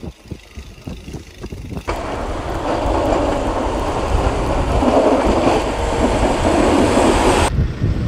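Gusty wind buffeting the microphone at first. About two seconds in it gives way to a steady, loud rushing from a snowplow truck pushing snow with its front blade, its engine running, which cuts off abruptly near the end.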